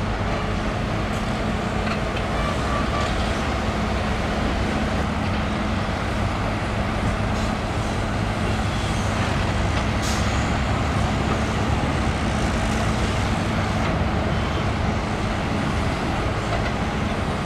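Diesel engines of excavators and dump trucks running steadily, a continuous low engine drone with no break. A brief sharp sound stands out about ten seconds in.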